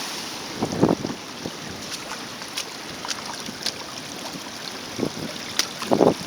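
Sea surf washing over a rocky reef: a steady hiss of moving water, with wind buffeting the microphone in low thumps about a second in and near the end. A few sharp ticks of splashing water stand out over the hiss.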